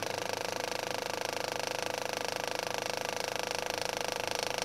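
Film projector running: a steady, rapid mechanical clatter of the film advancing through the gate.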